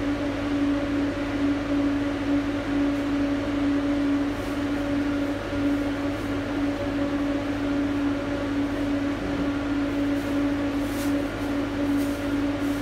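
Steady machine hum with one constant low tone and a low rumble beneath it, unchanging throughout.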